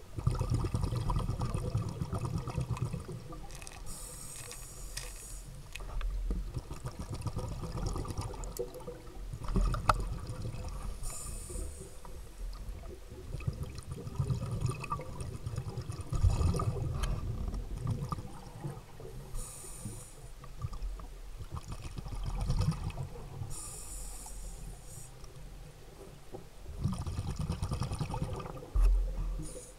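Underwater sound of scuba diving: a diver's exhaled regulator bubbles burst out in short hissing gushes every several seconds over a steady low rumble of water moving around the camera. Near the end a louder low rush as a gloved hand stirs the lake bed close to the camera.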